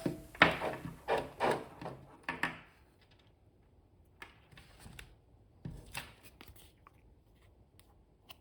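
Faint handling noises: a quick run of rubbing and rustling over the first couple of seconds, then a few scattered light clicks and taps.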